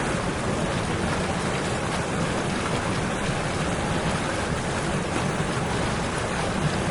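Steady rushing-water noise from heavy rain and flooding, with no breaks or single impacts.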